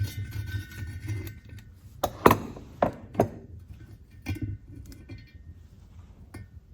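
Small steel parts of a cylinder head clinking and knocking as valve springs and collets are handled, with about half a dozen sharp clinks, the loudest about two seconds in, and a faint metallic ring.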